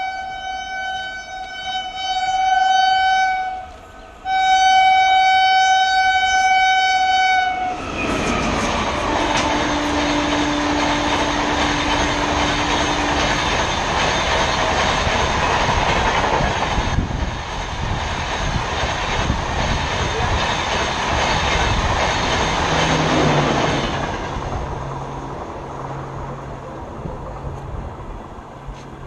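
WAP-5 electric locomotive's horn sounding two long blasts as it approaches. The Humsafar Express then passes close at high speed, its wheels clattering on the rails for about sixteen seconds before the noise tails off as the last coaches go by.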